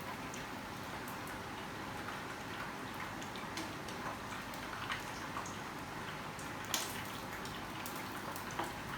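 Batter-coated chicken drumettes deep-frying in hot oil: a steady sizzle with scattered pops and crackles, and one sharper tick about seven seconds in.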